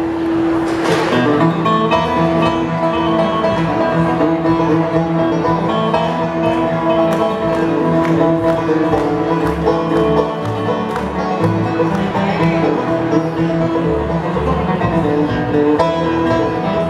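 Live bluegrass band playing the instrumental opening of a song, before the vocals come in.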